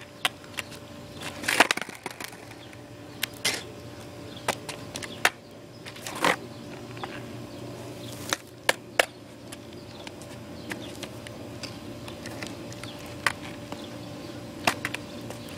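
Skateboard's wooden deck and wheels clacking and slapping on a concrete sidewalk as tricks are tried: about a dozen sharp knocks at uneven intervals, a few followed by short scraping rolls.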